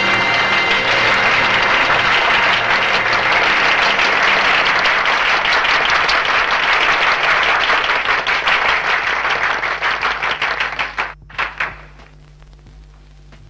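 A large audience applauding, dense clapping that thins out and dies away about eleven seconds in, leaving only a faint low hum.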